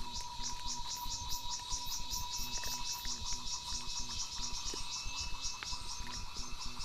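Insects chirping in a fast, even pulse, about six a second, over a steady thin tone, with scattered faint clicks.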